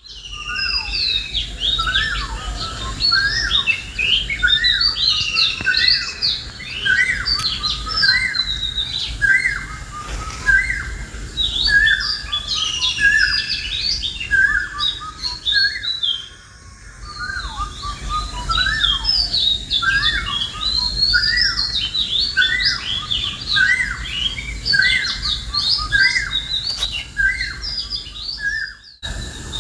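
Many birds chirping and calling at once, a dense chorus of short overlapping whistled calls with a brief lull about halfway through. A steady low rumble sits underneath.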